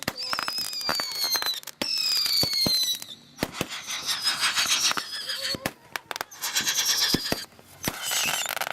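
Consumer fireworks going off: whistles one after another over the first three seconds, each sliding slowly down in pitch, then loud hissing and crackling with many sharp pops.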